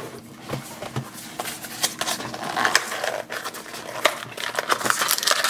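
A small cardboard blind box is taken from the display case and torn open by hand, making scattered clicks and rustling of cardboard that grow busier in the second half.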